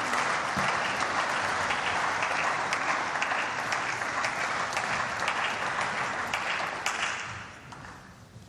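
A group of parliamentarians applauding: many hands clapping together, fading away near the end.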